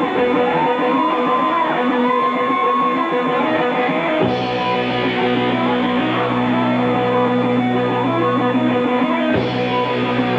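Live rock band playing, led by electric guitar with sustained, bending notes; a heavier low part comes in about four seconds in.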